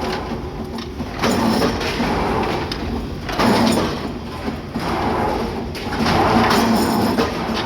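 Heavy factory machinery running in a repeating cycle, with a rumble and scraping clatter that swells about every two seconds.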